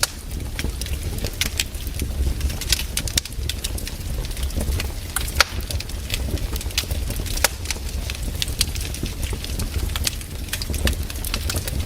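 Wood campfire burning, with frequent irregular crackles and sharp pops over a steady low rumble.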